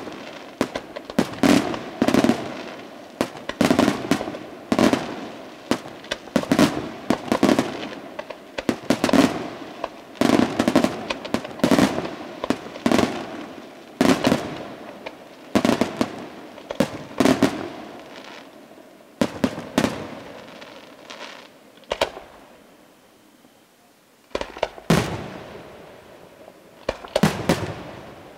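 Aerial firework shells bursting overhead in rapid succession, sharp bangs about one or two a second, each trailing off in a rumbling echo. About three-quarters through the barrage pauses for a few seconds, broken by a single crack, then picks up again.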